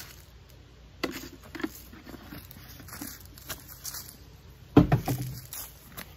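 Footsteps and light knocks and rustles close to the microphone, then a heavy thump and rustling of handling just before five seconds in, as the camera is touched and moved.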